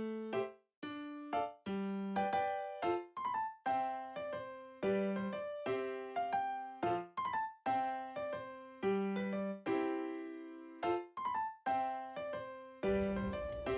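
Background music: a light electric piano melody of short, separate notes with brief silences between them. Faint room noise comes in under it near the end.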